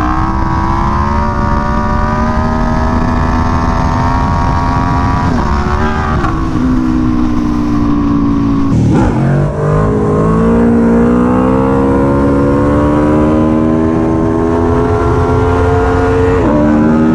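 Aprilia Tuono V4 1100 Factory's V4 engine, through an SC Project CR-T exhaust, accelerating hard. Its pitch climbs steadily in each gear and drops sharply at three upshifts: about a third of the way in, just past halfway, and near the end.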